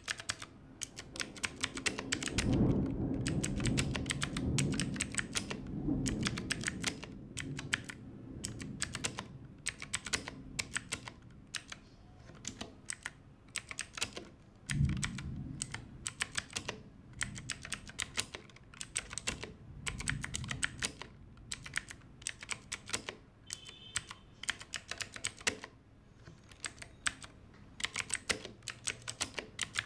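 Rapid typing on a clicky blue-switch mechanical keyboard: a dense run of sharp key clicks. A low rumble sits under the clicks from about two to six seconds in, and there is a single low thud about halfway.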